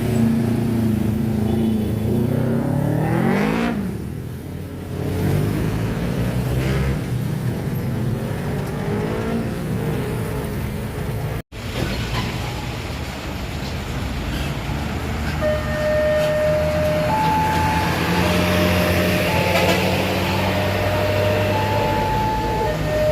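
Road vehicle engines running and passing at a railway level crossing, one sweeping up and then down in pitch as it goes by about three seconds in. In the second half a two-note warning tone alternates about once a second, typical of a level-crossing alarm.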